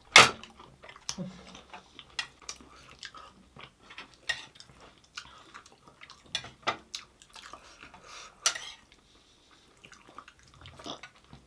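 Mukbang eating sounds: chewing, with scattered clinks and taps of dishes and utensils, one sharp clink just after the start and others around four and eight and a half seconds in.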